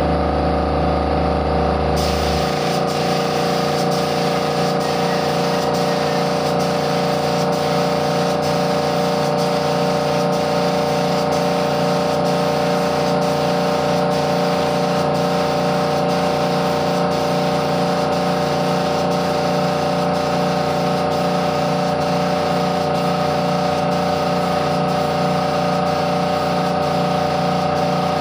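Small air compressor running with a steady hum, and from about two seconds in the continuous hiss of a compressed-air spray gun spraying varnish.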